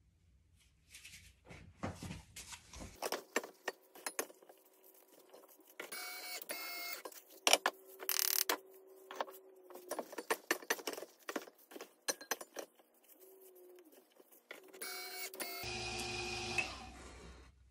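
Gloved hands working bath bomb powder in a stainless steel bowl and packing it into a mold: a run of irregular clicks, taps and scrapes. A short steady hum with a low rumble comes in near the end.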